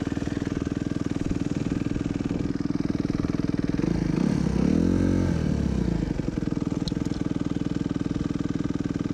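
Suzuki motocross bike's single-cylinder engine idling steadily, with one brief blip of the throttle about four seconds in that rises and falls back to idle.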